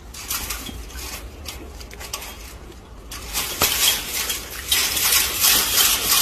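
Chain-link fence rattling and clattering as a macaque grabs at it and jumps about against the mesh, in irregular rattles that get louder about three seconds in.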